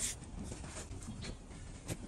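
A trimming blade paring and scraping a donkey's overgrown hoof in a few short, sharp strokes, one right at the start and a louder one near the end.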